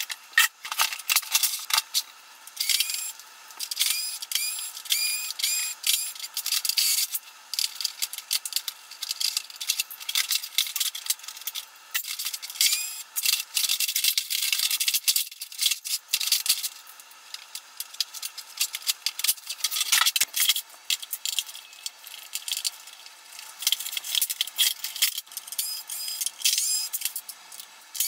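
Fast-forwarded clatter of plastic vacuum-cleaner housings and hand tools during a teardown: a dense run of rapid clicks, rattles and scrapes with brief high chirps now and then.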